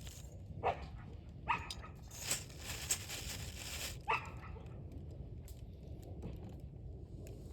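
Three short animal calls, each falling quickly in pitch, about a second in, a moment later, and again about four seconds in, over the crackle and pops of a burning wood fire.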